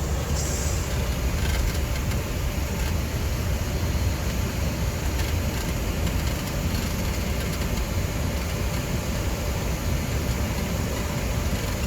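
Steady low rumble and hiss on a Boeing 737 flight deck on the ground, with the jet engines running at idle before takeoff.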